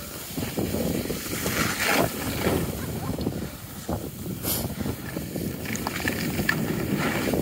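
Skis scraping and hissing over packed snow during a downhill run, in repeated swishes, with wind rushing over the microphone.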